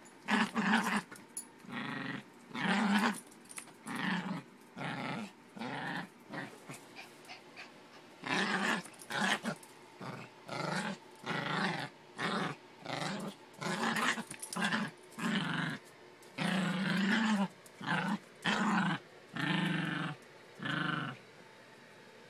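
Yorkshire terrier play-growling in short, rough bouts about once a second, stopping about a second before the end.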